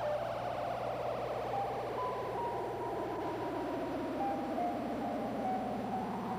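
Electronic synthesizer effect: a rapidly pulsing tone that slides slowly down in pitch, with short steady beeps stepping between a few pitches above it and a steady low hum underneath.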